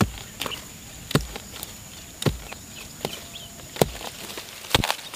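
Small hand hoe chopping into soil around the roots of a wild persimmon stump: about five sharp strikes, roughly a second apart.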